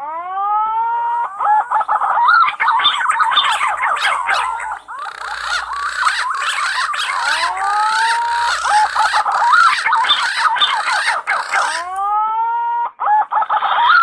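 Punai (green pigeons) calling: dense, overlapping whistled and warbling calls, with several arched whistles that rise and then fall in pitch. A run of clicks and crackle sits under the calls through the middle.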